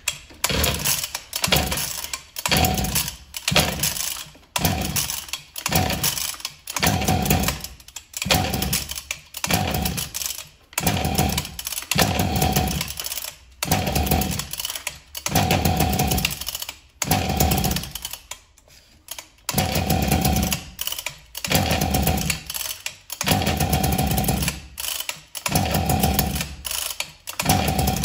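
Husqvarna 252RX brushcutter's two-stroke engine being pull-started again and again, the recoil starter cranking in rapid repeated pulls, about one every second or two, without the engine catching. The engine will not run, which the owner puts down to its scored piston.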